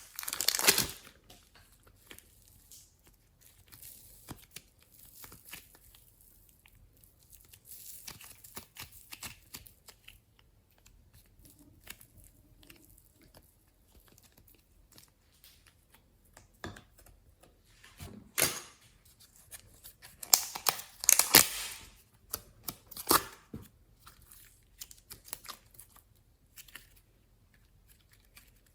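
Glossy slime with clay, glitter and foam mixed in, being squished and stretched by hand: sticky crackling and popping in scattered bursts, loudest at the start and about two-thirds of the way through, with quieter stretches between.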